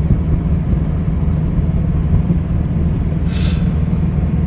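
Cab interior of a GAZelle Next truck driving in a strong wind: the Cummins 2.8 four-cylinder turbo-diesel and road noise drone steadily, with the wind hard against the truck. A brief hissing rush comes about three seconds in.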